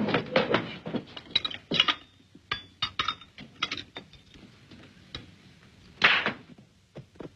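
A series of irregular knocks and clinks, with a louder short rushing burst about six seconds in.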